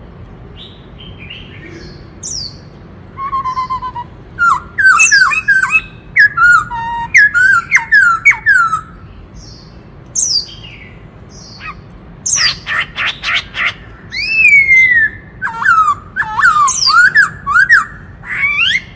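White-cheeked laughingthrush singing loudly: bursts of quick whistled notes that sweep up and down, with a rapid rattling run about twelve seconds in and a long falling whistle just after.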